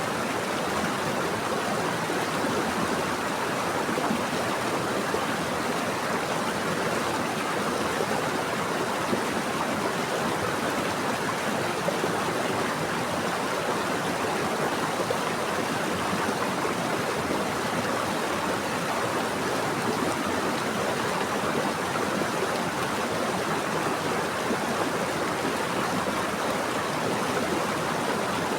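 Running water from a stream or small waterfall, a steady rushing flow with no change.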